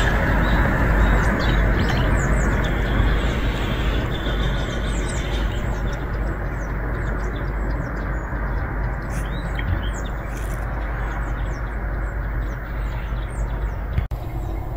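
Small birds chirping over and over, many short high calls, above a steady low outdoor rumble.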